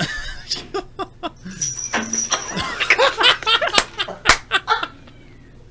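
Laughter in a run of short bursts lasting about five seconds, with a sharp knock about four seconds in.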